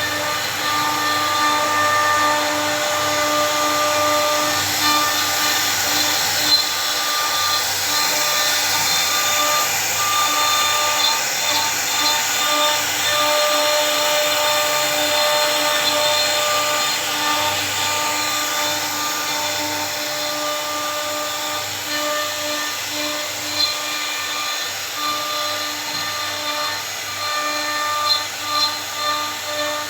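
Electric woodworking machine for furniture design work, its motor running steadily with a whine that holds its pitch, with brief small dips.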